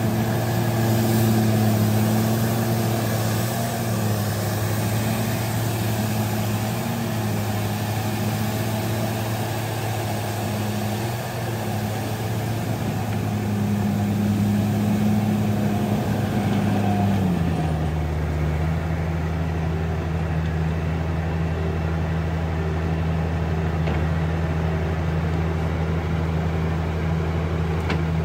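Diesel engine of a small crawler bulldozer running steadily, then dropping to a lower, steady speed about two-thirds of the way through, as if throttled back toward idle.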